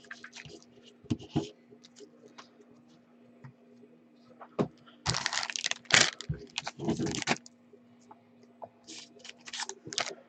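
Hands handling trading cards and their plastic and foil packaging: scattered clicks and scrapes, with louder rustling, crinkling bursts about five, six and seven seconds in. A faint steady hum runs underneath.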